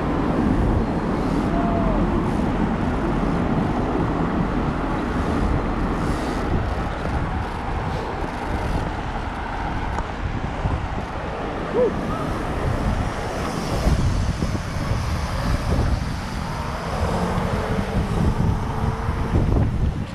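Steady road and traffic noise of vehicles moving on a freeway, with a few faint short tones rising out of it now and then.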